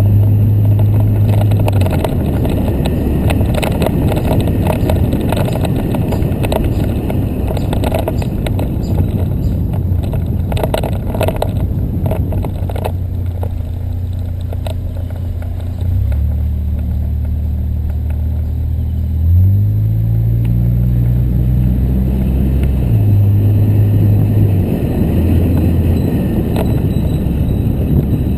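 A car driving, its engine note rising and falling in steps under steady road rumble, with a few knocks about ten to thirteen seconds in.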